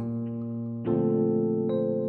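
Background music of sustained chords, a new chord struck at the start and again just under a second in, with an upper note shifting near the end.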